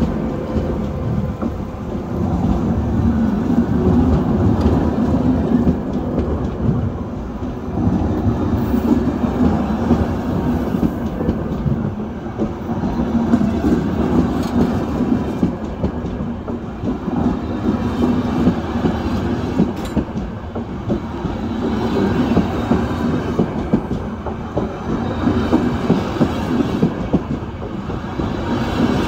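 Hellenic Train passenger train passing a few metres away, a steady loud rumble with the wheels clattering over the rail joints.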